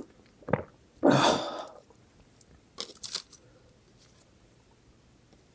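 Close-miked eating sounds: a short burst, then a louder noisy bite or slurp lasting under a second, then a few small clicks of mouth or utensils.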